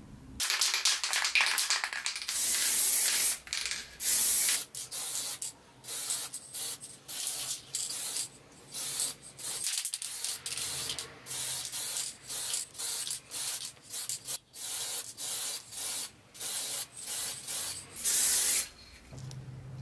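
Spray paint hissing out in many short bursts with brief gaps, a few of them held longer, as hand drill parts hanging on wire hooks are coated. The spraying stops near the end.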